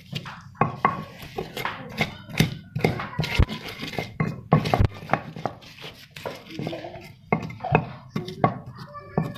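Stone pestle (ulekan) pounding and grinding raw chilies, shallots and garlic in a stone mortar (cobek): irregular stone-on-stone knocks, about two or three a second, as the spice paste is crushed.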